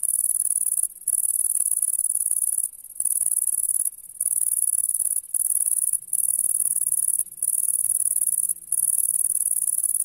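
Bush-cricket stridulating: a loud, high-pitched continuous buzzing trill, broken by short pauses of a fraction of a second every second or so.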